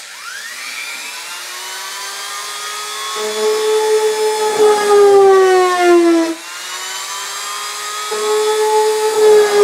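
A handheld rotary tool with a grinding stone starts up and speeds up to a steady high whine, then grinds through a fiberglass hood. The whine gets louder and drops in pitch twice as the stone bears into the fiberglass, about three seconds in and again about eight seconds in, picking back up in between.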